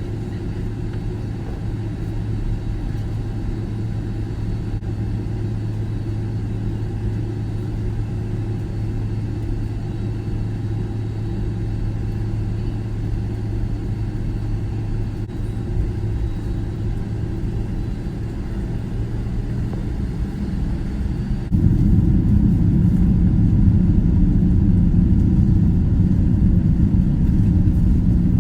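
Airliner's jet engines running as a steady low hum, which turns suddenly louder and deeper about three quarters of the way through.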